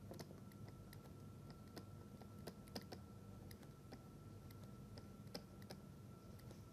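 Near silence: faint, irregular light clicks over a faint steady high hum.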